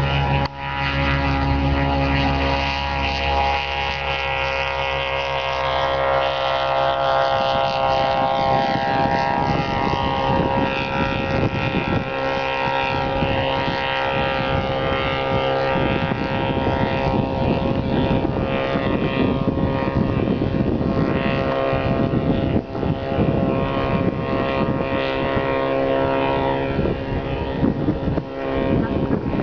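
Small homebuilt single-engine propeller aeroplane at takeoff power: a steady engine-and-propeller drone as it rolls, lifts off and climbs away, with wind buffeting the microphone.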